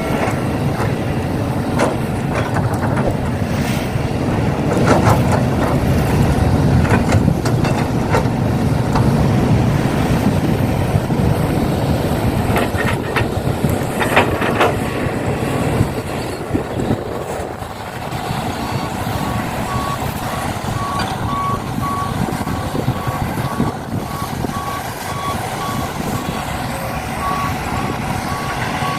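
A truck engine running with clattering and clicks, and from about two-thirds of the way in a reversing alarm beeping steadily at an even pace.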